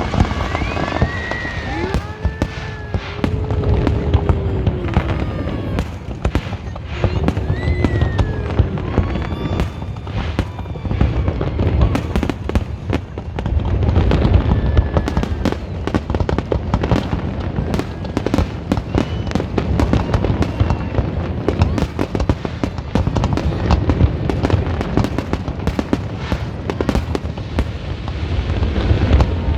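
Fireworks display going off continuously: rapid, dense bangs and crackling over a steady low rumble.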